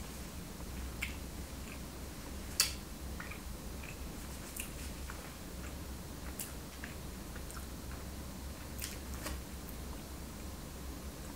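A person chewing and eating a soft donut: small wet mouth clicks and scattered sharp ticks, the loudest about two and a half seconds in, over a steady low hum.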